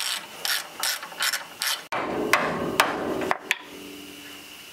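Hand socket ratchet clicking as he works nuts on the truck's front spindle and steering linkage: a quick run of clicking strokes, then a few single clicks after about two seconds.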